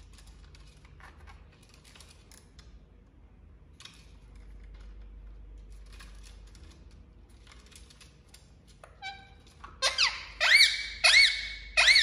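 Indian ringneck parakeet making a rapid series of loud, shrill calls near the end, about two a second, each starting with a quick downward sweep. Before that come faint scattered clicks and scratches of its beak working at the wooden perch.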